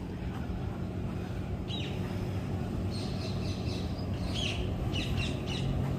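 A few faint, short bird chirps over a steady low background hum.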